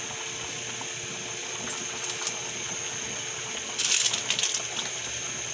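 Broth with ham, carrots and mushrooms simmering in a pot, with a short run of bubbling pops and crackles about four seconds in, over a steady high-pitched hum.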